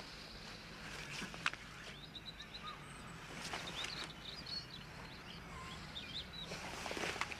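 Faint outdoor birdsong: many short, high chirps and twitters from small birds, with a few brief knocks and rustles.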